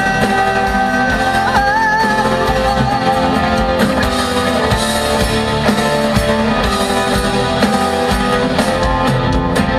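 Live band with guitars playing the closing bars of a song. A long note is held over the first two seconds, wavering as it ends.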